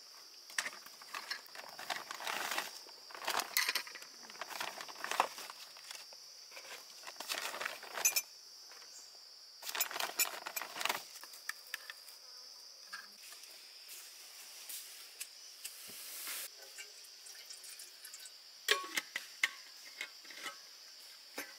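Insects droning steadily at a high pitch, with irregular rustling and light clinks and knocks of things being handled. The handling comes in bursts through the first half and again near the end.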